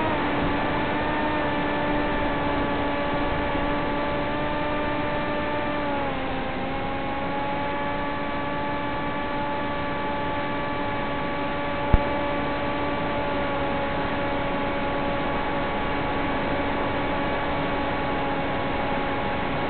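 Electric motor and propeller of an FPV model plane running at steady cruise throttle: a steady whine over hiss, its pitch dipping slightly at the start and again about six seconds in. A single sharp click comes about twelve seconds in.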